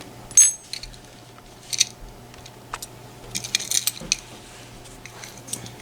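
Small metal parts of a disassembled pin-tumbler lock clicking and clinking as they are handled: a sharp ringing clink about half a second in, then a few scattered clicks and a quick cluster of clinks past the middle.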